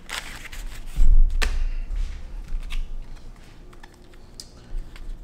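Card packaging being handled: light rustles and clicks of stiff paper, with a dull thump about a second in.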